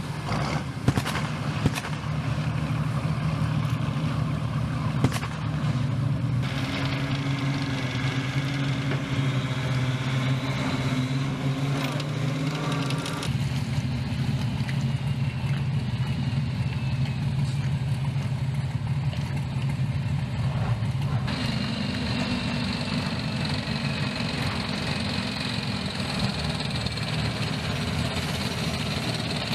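Heavy military vehicle engines running steadily, ending with an M1 Abrams tank driving across a pontoon bridge. The sound changes abruptly three times, and there are a couple of sharp knocks in the first few seconds.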